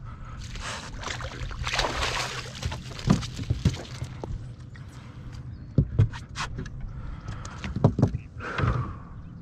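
Water splashing and sloshing against a small fishing boat, with a series of sharp knocks and thumps on the hull.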